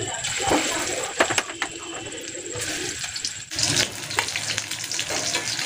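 Chicken pakoras deep-frying in hot oil in an aluminium kadai: a steady sizzling and bubbling, with a few sharp clinks of the metal spoon against the pan about a second in. The sizzle turns brighter and louder about three and a half seconds in.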